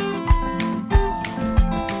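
Background music: guitar over a steady beat, a low thump about every two-thirds of a second.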